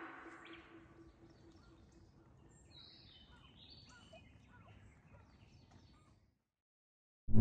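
Background music fades out in the first moments, then faint scattered bird chirps over quiet outdoor ambience.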